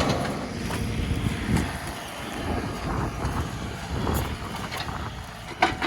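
John Deere 2038R compact tractor's three-cylinder diesel engine running steadily as it powers the 270B backhoe, with a few short knocks.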